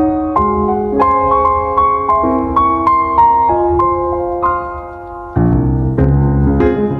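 Background piano music: a gentle melody of single notes, which dips quieter about five seconds in, then comes back fuller with lower chords.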